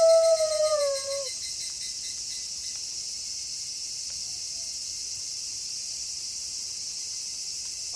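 A wolf's long howl ends with a downward slide about a second in. After it, a steady high-pitched chorus of night insects goes on alone.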